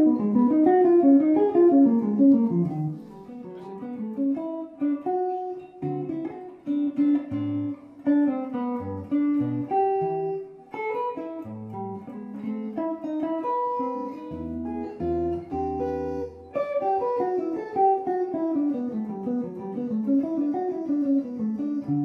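Electric guitar played through a guitar amplifier under test: fast falling single-note runs at the start, then chords and low bass notes, and more falling runs near the end.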